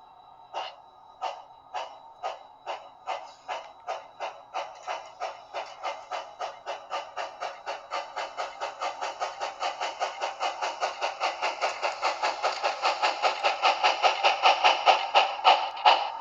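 HO scale steam locomotive's DCC sound decoder playing steam exhaust chuffs through its small onboard speaker as the model pulls away. The chuffs start slow, a little over one a second, then quicken steadily to about four or five a second and grow louder as the locomotive picks up speed.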